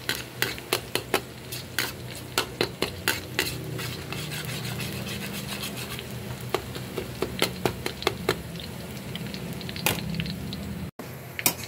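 Minced garlic sizzling in hot oil in a wok while a metal ladle stirs it, scraping and tapping against the pan. The taps come rapidly in the first few seconds and more sparsely after that.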